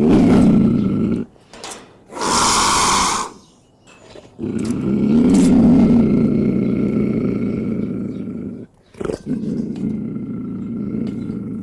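Lion growling: a short low growl, a harsh breathy burst about two seconds in, then a long low growl that swells and fades, and another growl near the end.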